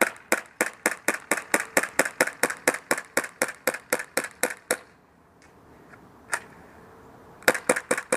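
Tokyo Marui Glock 17 gas blowback airsoft pistol, running on propane, firing a fast string of shots, about five a second, for nearly five seconds. After a pause comes a single shot, then three more in quick succession near the end as the magazine runs empty.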